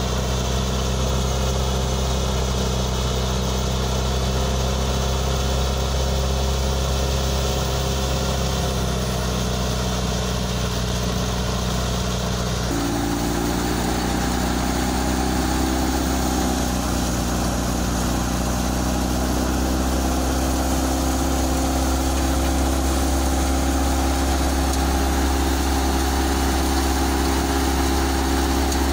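Wheat thresher driven by a Swaraj 855 tractor's diesel engine, running steadily while threshing: a continuous engine drone mixed with the whir of the thresher's drum and belts. The machine's tone shifts slightly about halfway through.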